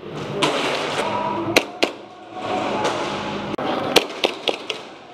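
Airsoft guns firing single shots in an indoor arena: sharp snaps, two about a second and a half in and a quick run of several near the end, over the steady noise of players moving.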